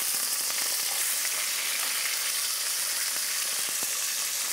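Bone-in pork chops sizzling in hot oil in a heavy enamelled cast-iron pot, freshly turned over. A steady hiss with a few faint ticks.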